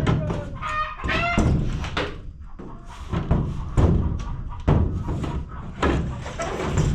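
Repeated thumps and knocks on the greenhouse roof panels during repair work, irregular at about one a second, with a voice early on.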